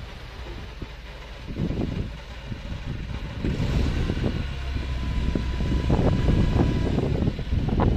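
Farm tractor engine running while its raised tipping trailer unloads chopped corn silage onto a pile, with uneven rumbling bursts; it gets louder from about halfway through.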